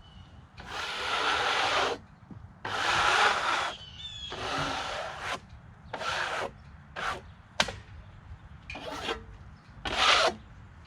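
Rough-sawn tulip poplar boards scraping and rubbing against wood in a run of rough strokes, each about a second long at first, then shorter and quicker, with a sharp click partway through.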